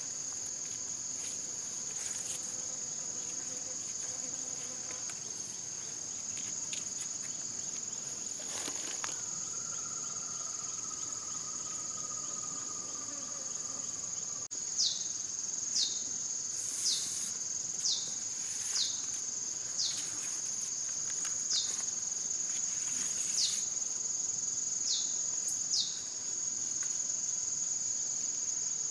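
A steady, high-pitched drone of insects. From about halfway on, a short downward-sweeping chirp repeats roughly once a second. A few faint knocks come as taro corm pieces are handled.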